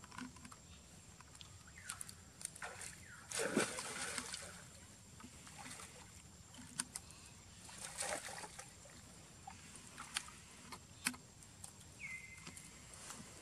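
Shallow pool water splashing and sloshing as a macaque moves and paddles at the pool's edge, with two louder splashes about three and eight seconds in and scattered small clicks and drips. A short high squeak comes near the end.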